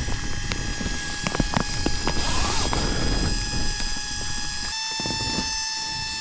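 Flextail mini electric air pump running with a steady whine as it inflates a sleeping mat, its pitch stepping up slightly about three-quarters of the way through. A few sharp clicks about a second in.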